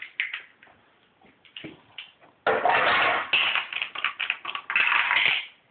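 Mighty Beans plastic tumbler toys running on plastic flip tracks: a few light clicks and taps, then about three seconds of dense clattering that stops suddenly near the end.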